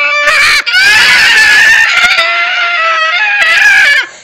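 A cartoon cat character's high-pitched, sped-up voice screaming and wailing with a wavering pitch, its reaction to the burn of hot red chilli. It breaks off briefly about half a second in and stops abruptly near the end.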